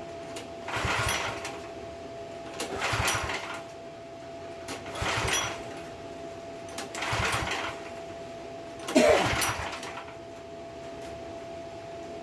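Pressure washer's small gas engine being pull-started on choke: five pulls of the recoil starter about two seconds apart, each a short whirring rattle of the engine turning over, the last the loudest. It does not fire or catch.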